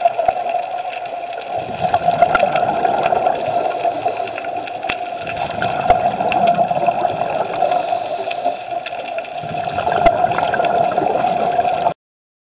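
Underwater sound of a scuba dive: a steady hum with scattered clicks and gurgling water, swelling with bubble noise every few seconds, cutting off abruptly near the end.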